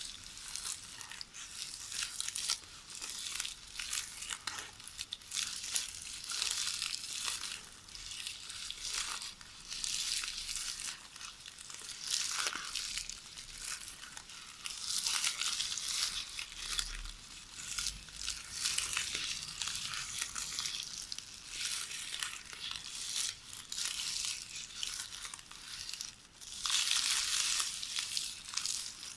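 VHS videotape ribbon rustling and crackling as it is knitted by hand, a crisp crinkling that comes in irregular surges and is loudest near the end.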